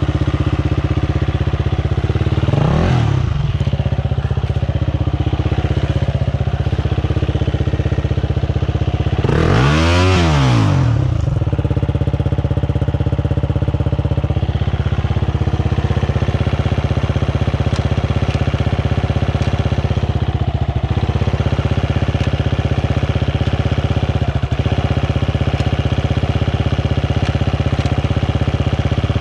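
Enduro dirt-bike engine running at a steady idle, revved up and let fall back twice, briefly about three seconds in and more strongly about ten seconds in.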